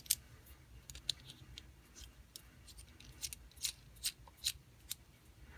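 A spark plug being threaded by hand into a metal thread-repair insert: light, irregular clicks and ticks as the threads turn and catch.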